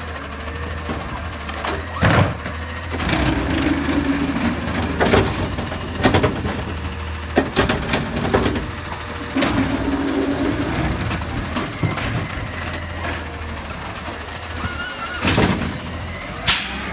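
Autocar ACX garbage truck's engine running while its McNeilus ZR automated side-loader arm grabs a wheeled cart, lifts it and dumps it into the hopper, then sets it back down. The engine hum rises twice as the arm's hydraulics work. Repeated clunks and bangs come from the cart and arm, the loudest near the end.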